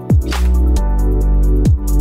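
Background electronic music: deep bass hits that drop in pitch, sustained bass notes and crisp high percussion ticks.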